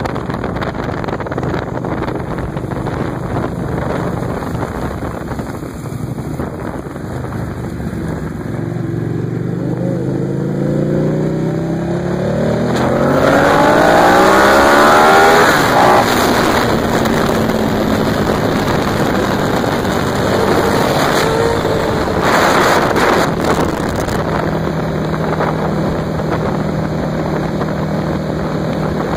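Motorcycle riding at road speed, heard from the pillion of a 2008 Buell 1125R: its V-twin engine runs steadily with wind rushing over the microphone. About halfway through the engine revs up hard, its pitch rising steeply for several seconds, then settles back to a steady cruise.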